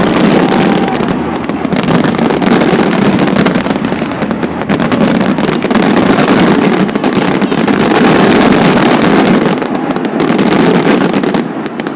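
A fireworks finale: a dense, continuous barrage of bangs and crackling shells, loud throughout, thinning out just before the end.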